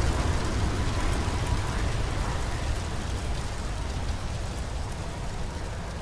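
Aftermath of a large explosion: a deep rumble and hiss slowly dying away.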